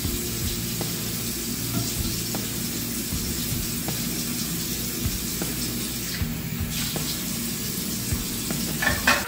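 Bathroom faucet running steadily into the sink, with small clicks and knocks of bottles being handled and a few sharper clicks near the end.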